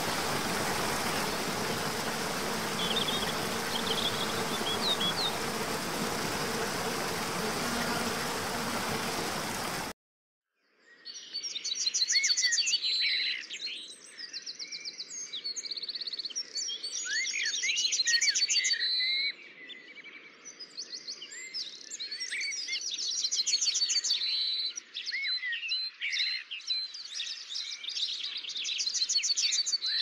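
Steady rush of a waterfall with a faint bird call, cut off abruptly about ten seconds in. After a moment of silence, a chorus of songbirds takes over, with overlapping chirps, quick trills and rising whistles, its loudness swelling and dipping.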